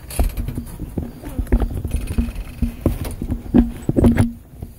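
Irregular knocks and bumps of handling close to a phone's microphone as the phone is moved about. The loudest come about three and a half and four seconds in, then the knocking stops.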